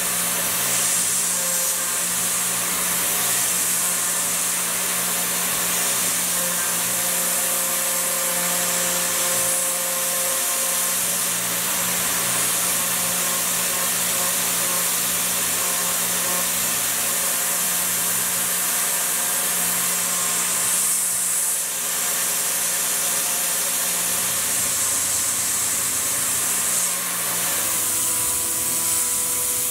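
CNC milling machine spindle running steadily while a small carbide end mill cuts an aluminum connecting rod. The spindle gives a steady tone under a constant hiss of cutting and mist-coolant spray. The tone changes slightly in the last few seconds, as the toolpath moves on.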